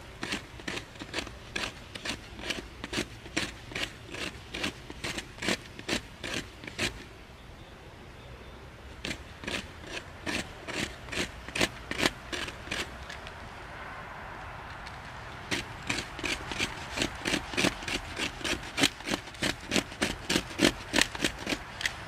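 A knife blade scraping wood in quick, even strokes, about two to three a second, shaving off fine tinder onto a metal plate. The scraping stops briefly twice, about seven seconds in and again around thirteen seconds.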